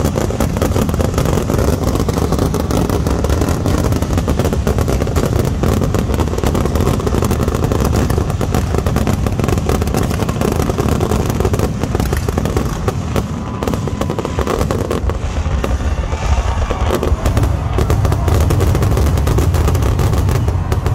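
Fireworks finale barrage: aerial shells bursting in rapid, overlapping succession, almost without a gap, over a heavy low rumble.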